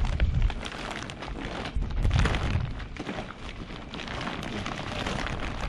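Plastic boat shrink wrap crinkling and rustling as it is rolled up by hand into a bundle, in many short crackles, with gusts of wind rumbling on the microphone.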